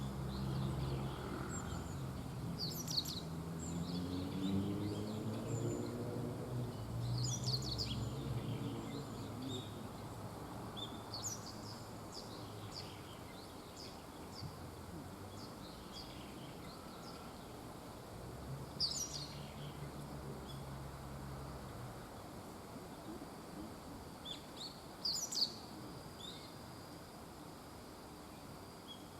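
Small birds giving short, high chirps every few seconds over a low, steady rumble that fades out about three-quarters of the way through.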